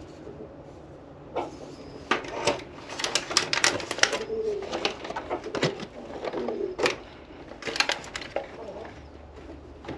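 Eggs being set into a clear plastic egg carton: a run of sharp plastic clicks and taps starting about a second and a half in and stopping near the end. Two short, low, wavering bird calls sound in the middle.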